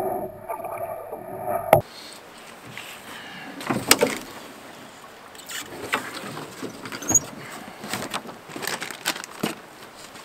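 Muffled rush of river water along a moving canoe's hull for about two seconds. This then gives way abruptly to irregular knocks, clunks and rustles of gear being lifted out of a beached canoe and of steps in dry brush, the loudest a clatter about four seconds in.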